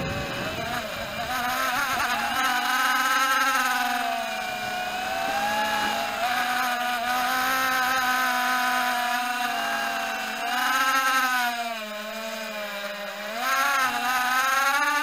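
Walkera Rodeo 110 mini quadcopter's motors and propellers whining in flight, the pitch rising and falling as the throttle changes, with higher swells about three seconds in, about eleven seconds in and near the end.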